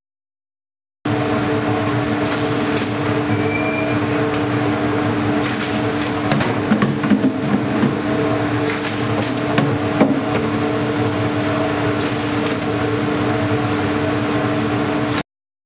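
Bottle leak tester and its conveyor running with 4-litre plastic jugs: a steady hum with several held tones, with scattered clicks and knocks, thickest in the middle, as the jugs move and are tested. It starts about a second in and cuts off suddenly near the end.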